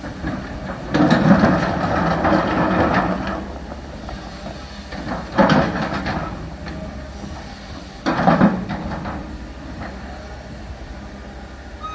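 CAT 320 hydraulic excavator's diesel engine running at work, with three louder noisy bursts: the first about a second in, lasting about two seconds, then shorter ones about five and a half and eight seconds in.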